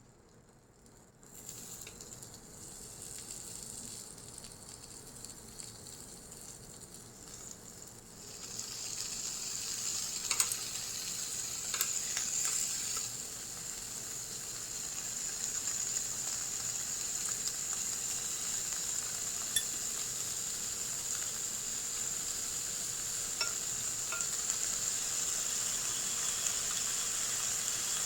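Japanese A5 Wagyu beef searing on a hot iron plate: a faint sizzle that grows sharply louder about eight seconds in, then holds steady. A few sharp clicks and pops are scattered through it.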